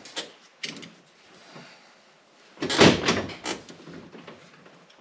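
A few scattered knocks and clicks of hard objects being handled, with a louder clatter about three seconds in.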